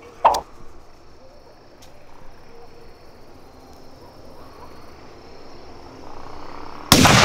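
A 'bomba cabeção' firecracker going off with a single loud bang near the end, after several seconds of waiting with only faint background hiss; the bang is very powerful.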